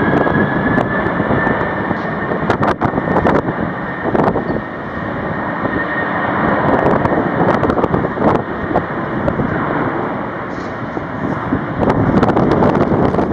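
Jet airliner's turbofan engines at takeoff thrust: a high whine that has just risen, holds steady, then fades after several seconds. Heavy wind buffets the microphone throughout.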